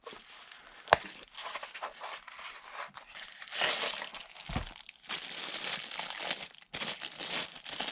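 One sharp click about a second in, then packaging crinkling and rustling as it is handled, typical of a multitool being unwrapped from its plastic.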